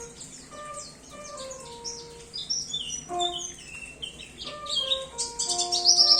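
White-eye (pleci) singing quick, high, falling chirps and twitters that grow louder and denser through the second half into a rapid run near the end. Under it, background music holds steady low notes.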